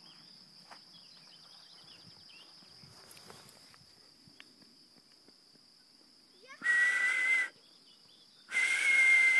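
A whistle blown twice, each a steady, breathy note about a second long, the second a little longer.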